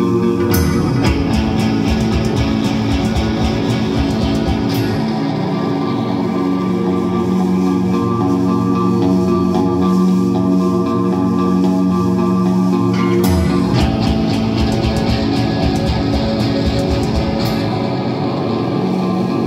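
Live rock band playing electric guitar, bass guitar and drums over a sustained held chord. The playing turns busier and brighter about a second in, eases back around five seconds, and builds again about thirteen seconds in.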